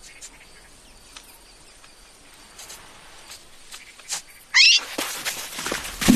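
Faint scattered clicks, then about four and a half seconds in a short high-pitched animal cry, followed by louder rustling and knocking.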